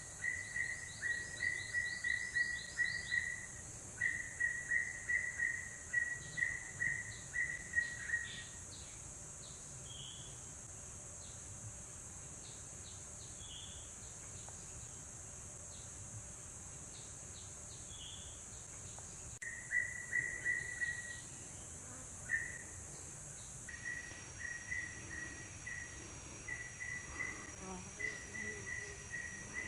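Insects chirping in trains of rapid pulses at one high pitch, falling quiet for several seconds in the middle and starting again, over a steady high hiss.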